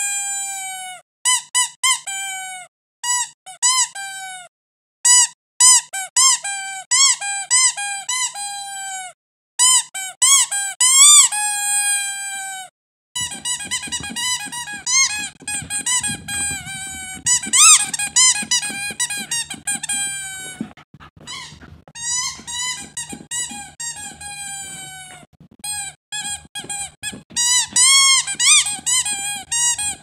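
Rubber squeaky toy squeezed over and over, giving runs of quick high squeaks that bend in pitch, some long and drawn out. About halfway through, a dog chews the toy: the squeaking goes on with low thuds and rustling underneath.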